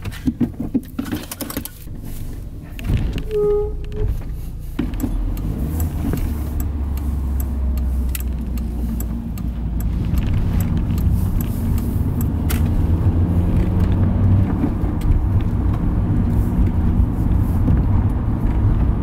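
Cabin sound of a 2001 Volkswagen Golf MK4 pulling away and driving: a low engine and road rumble that grows stronger and steadier about five seconds in, with small clicks and rattles throughout and one short beep about three and a half seconds in.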